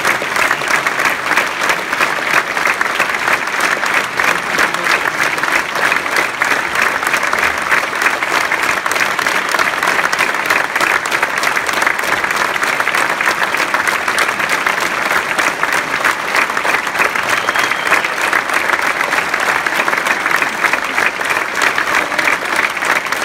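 Large audience applauding in a concert hall: dense, steady clapping.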